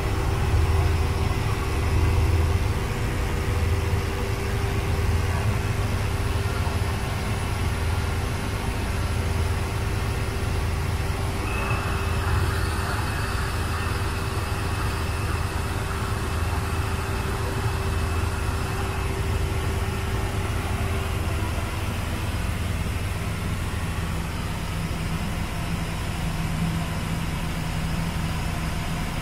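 An engine runs steadily under a low rumble, with a steady hum that stops a little past two-thirds in and a thin high whine for several seconds in the middle.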